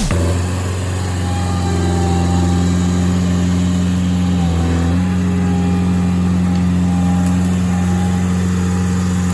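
Skid-steer loader's engine running at a steady speed, with a brief dip in pitch about four and a half seconds in.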